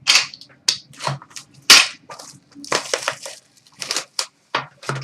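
A sealed trading card box's packaging being torn open by hand: irregular crackling and tearing of wrapping and cardboard in short bursts, the loudest about two seconds in.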